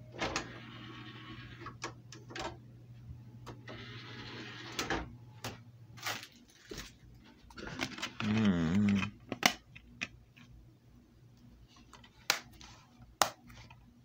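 Handling noise from a handheld camera being moved about: scattered clicks, knocks and brief rustles over a low steady electrical hum that stops about six seconds in. About eight seconds in, a loud, short wavering pitched sound lasts under a second.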